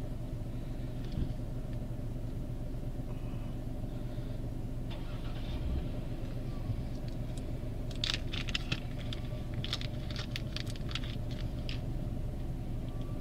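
Car engine idling steadily, heard from inside the cabin. About eight seconds in, a run of small sharp clicks and rattles for a few seconds as the new ear gauges are handled.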